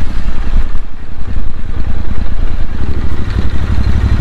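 Royal Enfield Interceptor 650's parallel-twin engine running while the bike is ridden, heard from on board as a loud, steady low rumble.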